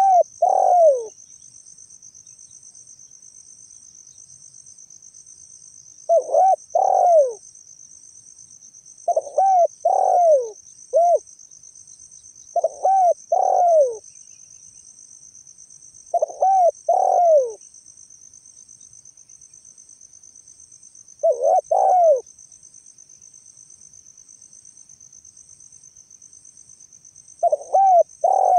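Spotted dove cooing: seven short phrases of two or three coos each, the last note falling in pitch, spaced several seconds apart. A steady high chirring of crickets runs underneath.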